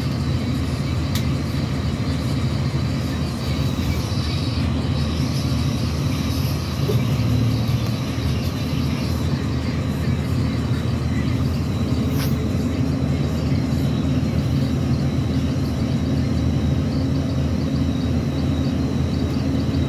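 Steady low engine and road rumble inside a city bus, with a faint steady high whine.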